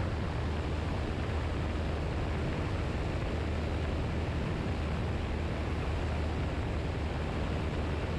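Piper Super Cub's piston engine and propeller droning steadily in low cruise flight, with a constant rush of airflow over the microphone.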